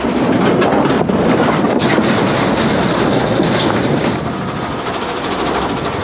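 Broken concrete slabs scraping and sliding out of a tipped dump trailer bed, a dense grinding rumble full of knocks as they drop onto the rubble pile. Loudest over the first four seconds, then easing.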